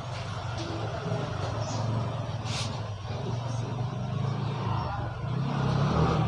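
A motor vehicle's engine running nearby: a steady low rumble that grows a little louder near the end.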